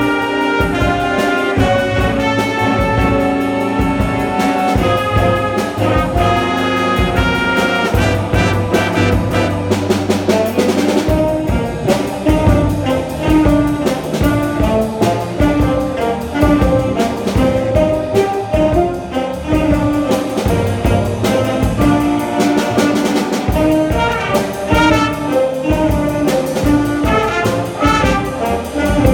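A jazz band playing: brass and saxophones over drums, loud and continuous.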